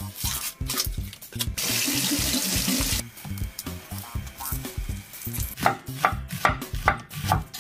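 Kitchen tap running for about a second and a half, then a knife slicing an onion on a wooden chopping board: a quick run of sharp cuts, about three a second, near the end.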